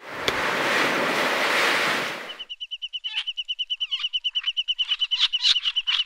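A rushing noise like a breaking wave for about two seconds, cutting off, then frogs croaking: a rapid, even trill of high clicks, about ten a second, with louder croaks over it.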